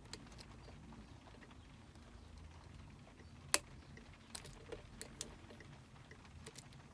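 Light metallic clicks and ticks of a lock pick and tension wrench working the pin stack inside a Union D-Tec euro cylinder, with one sharper click about three and a half seconds in and a few more clicks after it.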